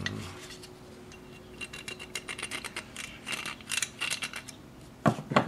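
A thin steel pick scraping and ticking in the rusty groove inside a brake master cylinder's bore, digging rust out: a quick run of small metallic scratches and clicks. Two louder knocks come near the end.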